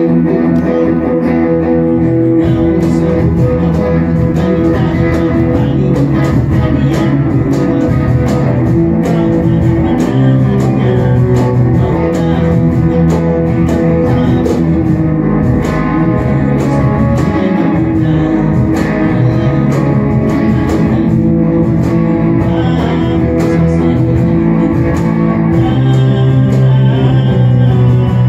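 Live band music: electric guitar playing over a steady bass guitar line, loud and continuous.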